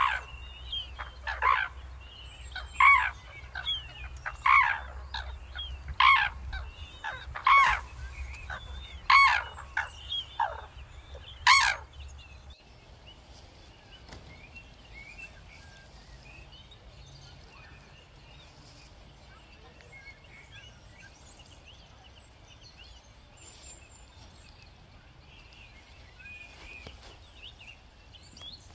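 Red-crowned crane calling loudly and repeatedly, about eight calls roughly a second and a half apart. The calls stop about twelve seconds in, leaving only faint small-bird chirping.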